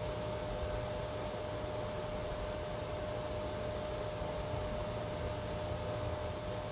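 Steady room tone: an even hiss with a low rumble and a thin, steady whine, with no other sound.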